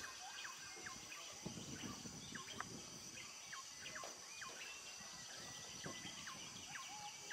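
Dawn chorus in Bornean rainforest: many birds giving short, quick whistled notes, some sliding down in pitch, over a steady high insect drone.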